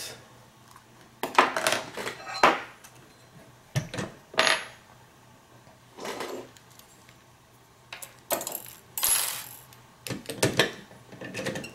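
A padlock and metal lockpicking tools being handled and clamped into a bench vise: a string of uneven metallic clacks and clinks, some with a short ring.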